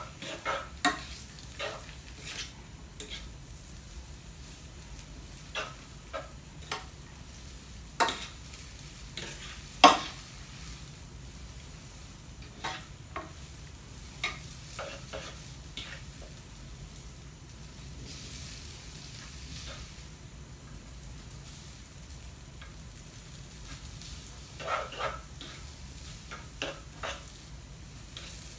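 Food sizzling in a frying pan while a utensil stirs it, with scattered short scrapes and clacks against the pan; the two loudest knocks come about 8 and 10 seconds in.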